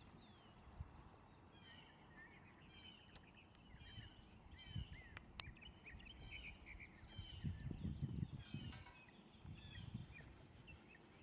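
Small birds chirping over and over in short, quiet, down-sweeping notes. Low bumps and rustles close by, loudest a little past halfway.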